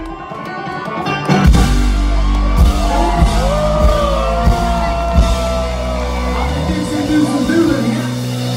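Live band playing loudly, a five-string banjo picking a solo over bass guitar and drum kit. A few shouts rise over the music in the middle.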